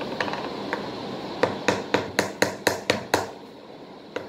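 About a second and a half in, a run of about eight quick, sharp taps, roughly four a second: a small plastic glue bottle knocked against a small bowl to get out the last of its glue, the bottle running empty.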